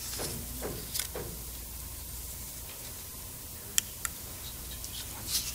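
Steady low hum of room tone with a few faint sharp clicks: one about a second in and two close together near four seconds in.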